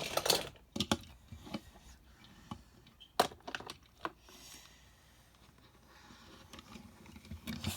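Toy cars being handled and moved, giving scattered light clicks and knocks: a few in the first second and a couple about three seconds in, then mostly quiet.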